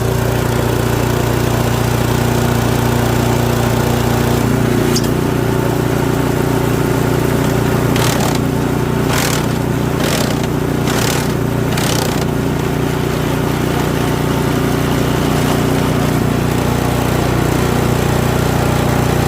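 Toro 721R single-stage snowblower's 212 cc engine running steadily. About eight seconds in comes a run of five short bursts of noise, about a second apart.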